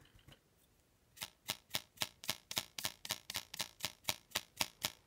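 Small paintbrush stroking out to the edge of a thin clear PVC sheet, the plastic edge flicking the bristles with a sharp tick on every stroke. After about a second, the ticks come in an even rhythm of about four a second.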